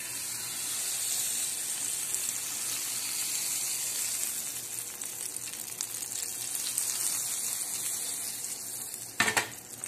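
Butter melting and sizzling in a hot nonstick frying pan, a steady high hiss. A brief clatter sounds near the end.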